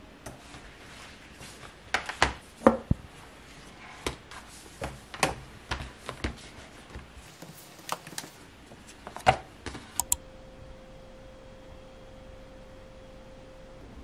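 Keys clicking on an iPad Magic Keyboard and an iPad being handled, with irregular sharp clicks and taps, some in quick pairs. About ten seconds in the clicks stop and a faint steady hum remains.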